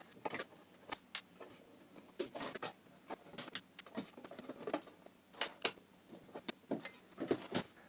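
Screwdriver loosening the screws that hold a computer power supply: irregular small clicks and scrapes of metal on metal.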